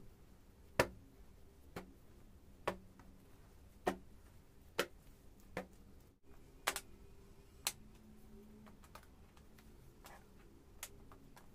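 A series of sharp single clicks, roughly one a second and unevenly spaced, over a faint room hum.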